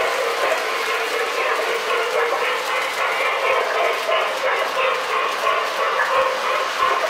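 O-gauge toy train, a RailKing Hiawatha locomotive pulling Lionel passenger cars, rolling along three-rail tubular track with a steady rolling rumble and clatter of wheels on the rails.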